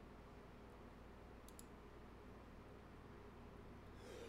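Near silence: room tone with a faint low hum, and one soft double click about a second and a half in.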